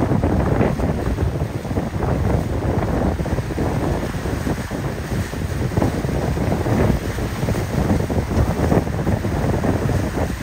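Gusty wind buffeting the microphone over the wash of choppy sea and surf, with waves breaking on rocks.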